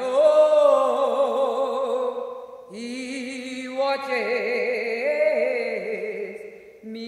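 A voice singing long held notes with a wavering vibrato, in two phrases with a brief break about a third of the way in.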